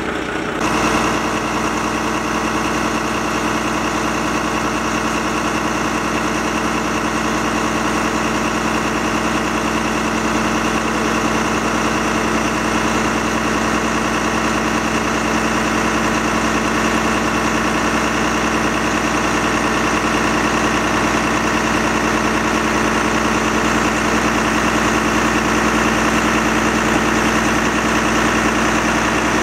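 Diesel engine of a Volvo fire truck carrying a Bronto Skylift aerial platform, running steadily to power the platform's hydraulics. It is a continuous drone with several held tones, changing character about half a second in and staying even thereafter.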